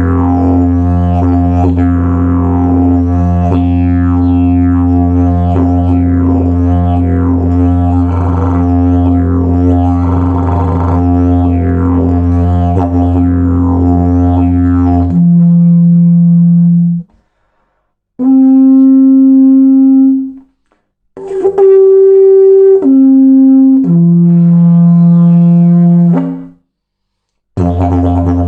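Slide didgeridoo with a removable three-piece slide, played as a continuous low drone with sweeping overtones for about fifteen seconds. It then switches to separate held higher horn notes with short silences between them, stepping up in pitch and back down. The low drone starts again near the end.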